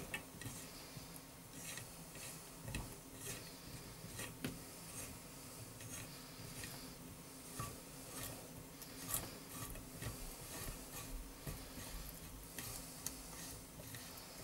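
Faint, irregular small metallic clicks and scrapes of a valve spring compressor tool and wrench being worked on a Lexus LS400 aluminium cylinder head, with one slightly louder click about nine seconds in.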